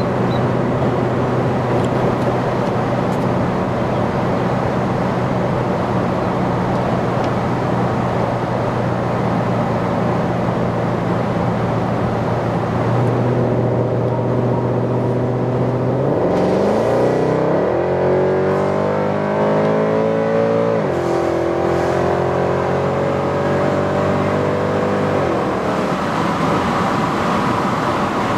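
Mercedes C63 AMG's V8 engine and exhaust running at a steady drone, then accelerating about halfway through: the pitch climbs, drops suddenly, climbs again, and falls back near the end.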